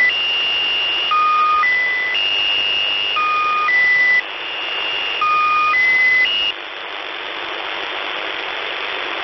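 The Squeaky Wheel (S32) Russian military shortwave station's channel marker, received in USB: a repeating cycle of short steady beeps stepping between several pitches, over radio static. The marker breaks off about six and a half seconds in, leaving only static hiss. The marker runs while no traffic is being sent, so its stopping marks the start of a transmission.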